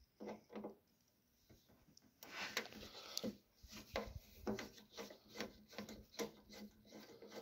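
A hand screwdriver backing a machine screw out of a floating nut plate in a Cessna 150's cowl: faint metal-on-metal scraping, a couple of light ticks at first, then short rasping strokes two to three a second as the screwdriver turns.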